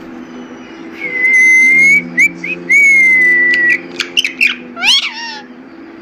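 Rose-ringed parakeet whistling: two long, level whistles with short chirps between them, then a run of sharp short calls and a couple of quick sweeping squawks near the end.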